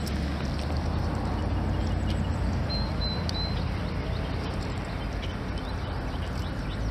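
Steady rushing of flowing river water, with a short high thin tone about three seconds in.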